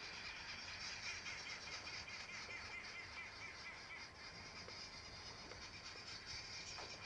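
Faint natural outdoor ambience: a steady high-pitched chorus of insects and birds, with a rapid repeating trill during the first few seconds.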